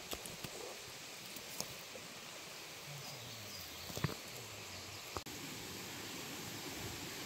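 Outdoor woodland ambience: a steady background hiss with a few faint clicks and rustles, and a brief drop-out a little past five seconds.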